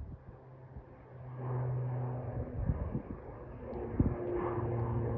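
Beechcraft King Air 350i twin-turboprop climbing out overhead after takeoff: a steady propeller drone over a rumble, growing louder about a second and a half in. A sharp thump about four seconds in.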